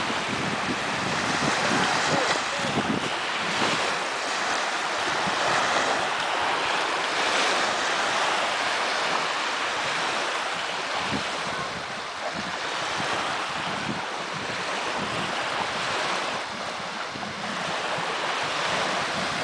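Small lake waves washing onto the beach, a steady hiss that swells and ebs, with wind gusting on the microphone, strongest near the start.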